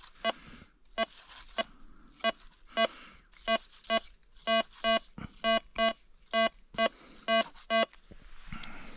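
Metal detector beeping repeatedly over a target: about fifteen short, identical electronic tones, roughly two a second, signalling metal under the search head.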